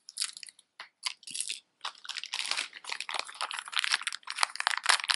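A few short clicks, then a clear plastic zip bag crinkling and crackling as hands open and work it, heavier from about two seconds in.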